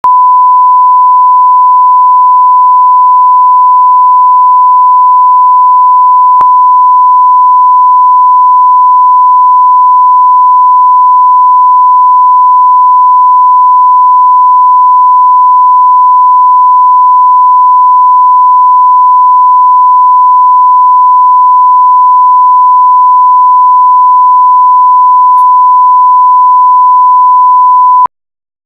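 Steady 1 kHz line-up test tone accompanying SMPTE colour bars, one loud unbroken pitch that cuts off suddenly near the end, with a faint click about six seconds in.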